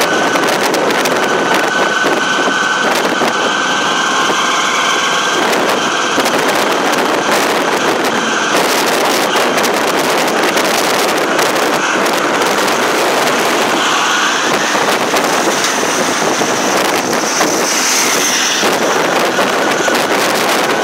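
Auto-rickshaw under way, heard from inside its open-sided cabin: the engine running steadily, mixed with wind and road noise, loud and unbroken.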